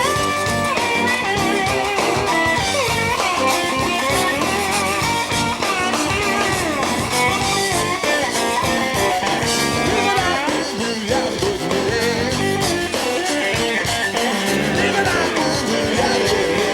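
Live blues band playing an instrumental break, with a lead guitar line that bends and slides in pitch over the rhythm section.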